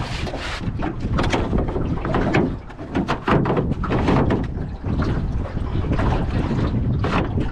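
Wind buffeting the microphone and water slapping against the hull of a small aluminium boat, with many irregular knocks and slaps.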